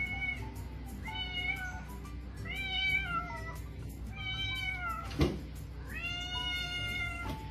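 Domestic cat meowing in four long, drawn-out calls, each rising and then falling in pitch: calling out for its owner. A single sharp knock about five seconds in.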